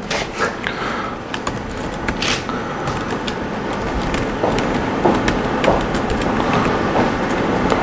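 Scattered laptop keystrokes, short sharp clicks, over a steady rushing room noise.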